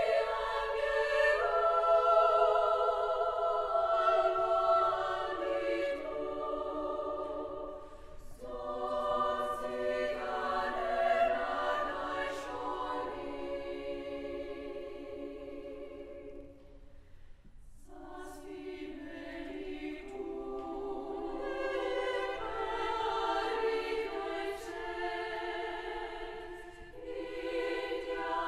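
Women's chamber choir singing in several parts in Basque, holding sustained chords. The singing comes in phrases, with short breaks about eight seconds in and again about seventeen seconds in.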